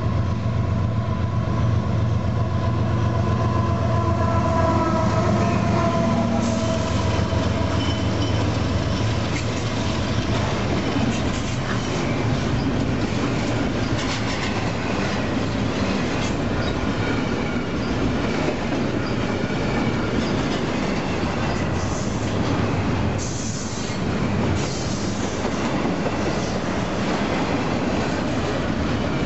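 Union Pacific diesel locomotives pass with a heavy engine drone and a whine that falls in pitch. The double-stack container cars behind them roll by with steady wheel-on-rail noise, clicking over rail joints, and a few brief wheel squeals later on.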